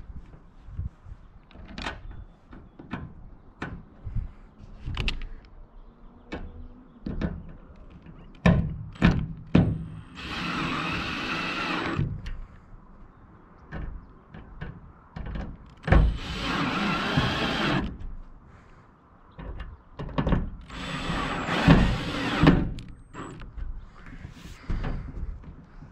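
Cordless drill run in three bursts of about two seconds each at a fitting on an Airstream trailer's aluminum roof, with sharp clicks and knocks of handling between the bursts.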